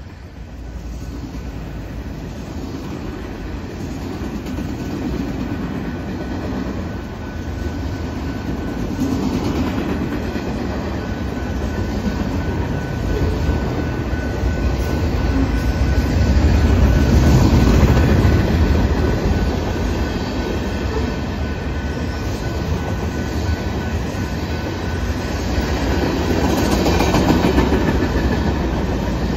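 Norfolk Southern manifest freight train's cars rolling past at speed: a continuous rumble of steel wheels on rail with clickety-clack over the rail joints. It grows louder toward the middle and again near the end.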